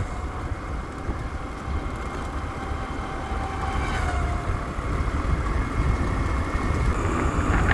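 Petrol scooter running steadily at cruising speed along a road, heard with a constant low wind rumble on the microphone.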